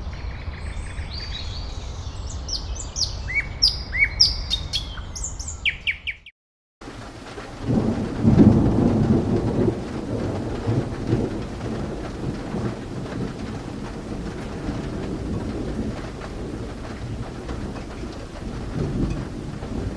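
Birds chirping for about six seconds, then after a brief cut a low rumble of thunder swells in, loudest a couple of seconds later, and carries on as the steady rush of rain.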